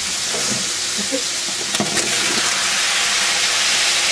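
Onions and garlic sizzling steadily in olive oil in a large aluminium stockpot. A little under two seconds in there are a few sharp clatters as cut tomatoes go into the pot, and the sizzle then grows a little louder.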